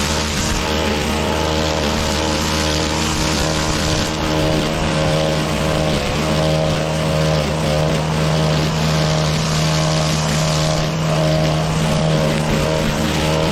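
Petrol engine of grass-mowing equipment running steadily while cutting long, thick, wet grass.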